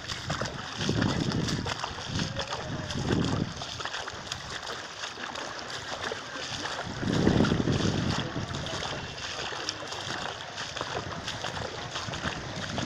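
Floodwater splashing and sloshing over a steady rushing noise, with louder surges about a second in, around three seconds in and around seven seconds in.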